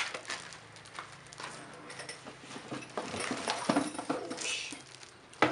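Plastic wrapping crinkling and cardboard rubbing as a boxed brush cutter is handled and lifted out, with scattered small knocks and rustles. There is a sharp knock at the very start and another near the end.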